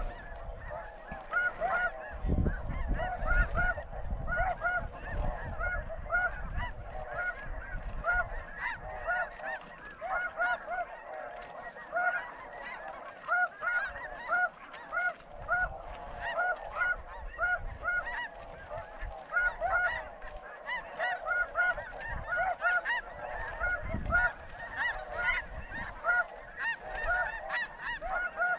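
A large flock of snow geese calling, a dense, continuous chorus of short, high honks.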